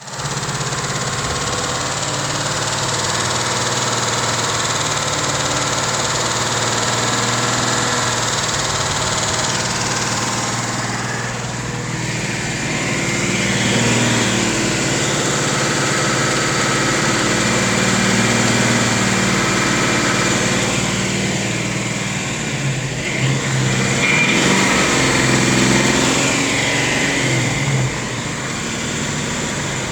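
2018 Ford Mustang GT's 5.0-litre V8 running, held at about 2500 rpm. The engine speed wavers up and down a little, with somewhat louder stretches in the second half.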